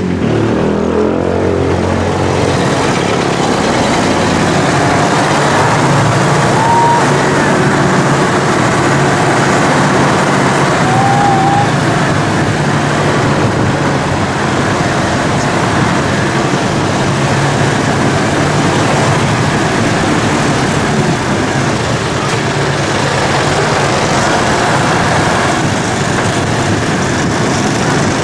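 Bus engine running steadily as the bus crawls along a rough dirt road, with steady road noise. Two brief high squeaks, about seven and eleven seconds in.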